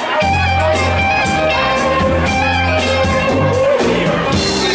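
Live band playing rock music: electric guitar over bass guitar and drums, with a steady cymbal beat.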